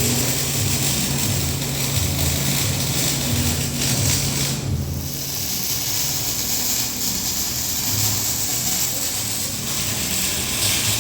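TIG welding arc running on steel pipe: a steady hiss over a low hum, with a brief dip about five seconds in.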